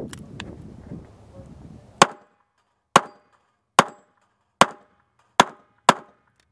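Six revolver shots fired in a quick string: four at a steady pace of about one every 0.8 s, then the last two closer together. The first two seconds hold only movement noise and small clicks.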